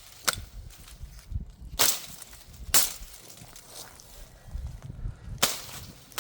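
Cold Steel Mayhem folding knife being handled, with four short, sharp snaps spread over several seconds over a low rumble of handling.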